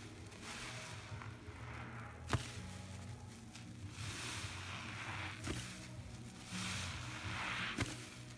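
A soaked sponge squeezed and kneaded in thick Pine-Sol foam: wet squelching and fizzing of bubbles that swells with each squeeze, with three sharp wet clicks along the way.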